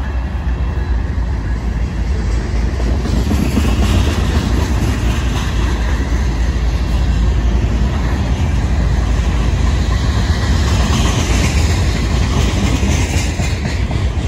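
Freight cars, hoppers and tank cars, rolling past close by: a steady, loud rumble and rattle of steel wheels on the rails.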